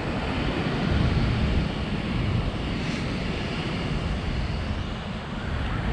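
Steady rumbling wash of wind on the microphone and ocean surf, heavy in the low end with no distinct tones.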